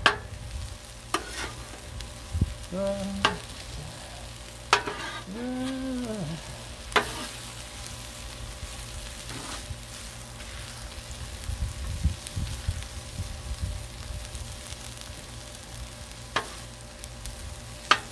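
Diced onion, celery and peppers sizzling on a hot Blackstone steel flat-top griddle, with a metal spatula scraping and clacking on the plate every few seconds. Two short pitched tones come about three and five seconds in.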